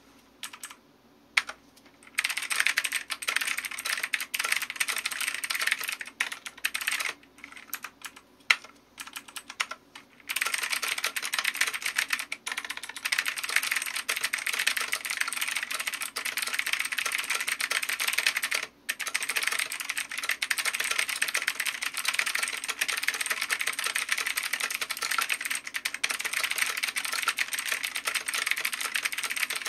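Typing on a Xenics Titan Mark X mechanical keyboard with blue (clicky) switches: sharp, dense key clicks. A few single key presses come first, then fast typing, a sparser patch around seven to ten seconds in, and continuous fast typing after that.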